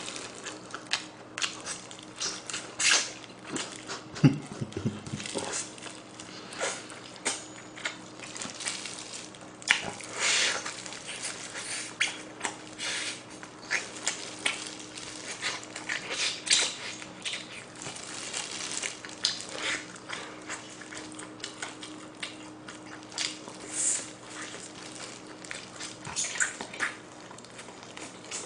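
Close-miked eating sounds of someone gnawing and tearing meat off a braised pig's trotter (jokbal) bone, with irregular wet smacks, lip-smacking and chewing clicks.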